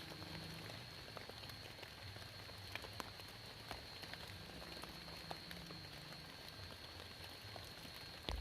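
Rain falling, with scattered drops ticking sharply on a surface, over a steady thin high-pitched tone.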